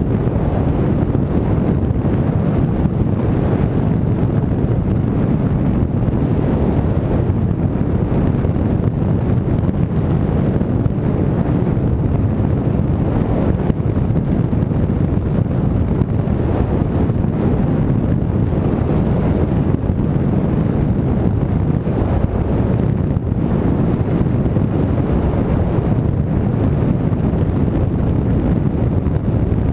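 Steady low rush of airflow buffeting the microphone of a camera flying on an R/C model plane, with no motor tone heard.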